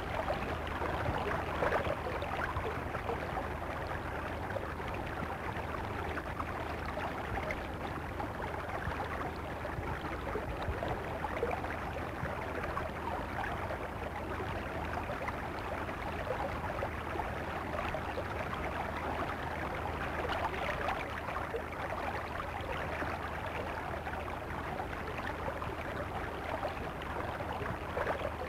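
Steady rushing of running water, an even, unbroken wash of noise, over a low constant hum.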